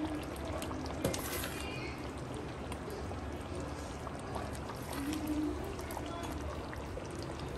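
Silicone spatula stirring creamy chicken gravy in a stainless steel pot, the thick sauce sloshing, with a single light knock of the spatula against the pot about a second in.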